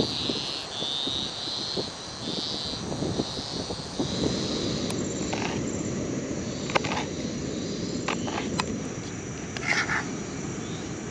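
A high chirping call repeats at a steady pace over a steady low rumble and stops about four seconds in. After that, a knife cuts vegetables on a plastic cutting board, with a few sharp taps of the blade against the board.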